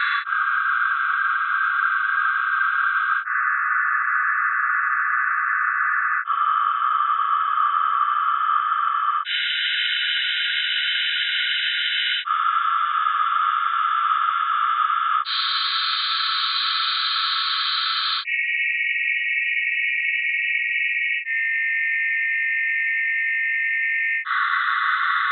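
Sonified atomic emission spectra of the lanthanide elements, cerium through dysprosium: each element's spectral lines turned into a dense cluster of steady sine tones, ten octaves below the light, sitting between about 1 and 4 kHz. The chord changes abruptly about every three seconds as one element gives way to the next, with a brief dip at each change.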